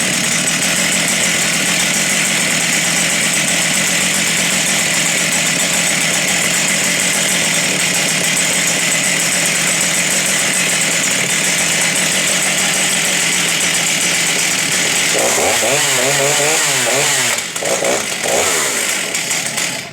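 Stihl 084 two-stroke chainsaw running at high revs, then revved up and down several times about fifteen seconds in, with the engine dropping back near the end.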